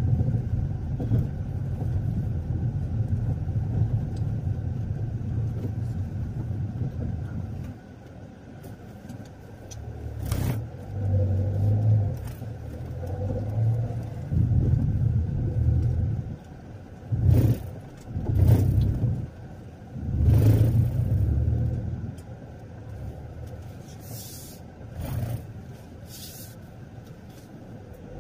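A car on the move: a low engine and road rumble that swells and eases, with several short knocks or jolts.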